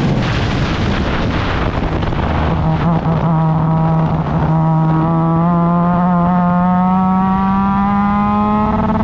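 A Formula Mazda race car's rotary engine, rough and unsettled for the first three seconds, then pulling hard in one gear with its pitch rising slowly and steadily.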